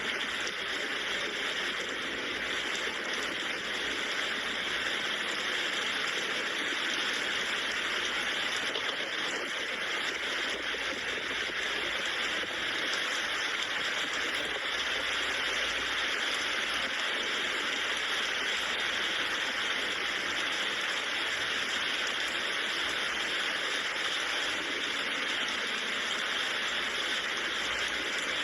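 Steady rainfall: an even, unbroken hiss with no single drops, thunder or other sounds standing out.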